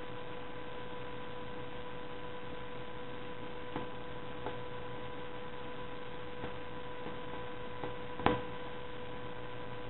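Steady electrical hum in the recording, a constant tone with overtones, with a few faint ticks from hands handling and knotting the bracelet strings, the loudest one about eight seconds in.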